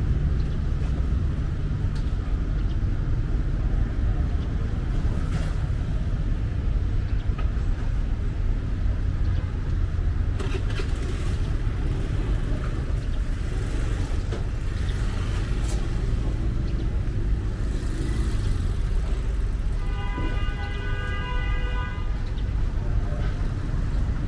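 Street traffic: a steady low rumble of motorbikes and cars, with a vehicle horn sounding for about two seconds near the end.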